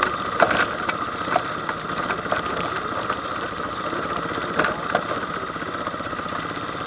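ATV engine running steadily, with a few sharp knocks, the loudest about half a second in and again near the middle.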